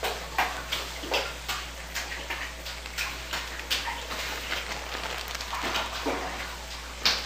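Sugar poured from a plastic packet into a sugar canister, with the packet crinkling as it is handled: irregular light crackles and taps, two or three a second.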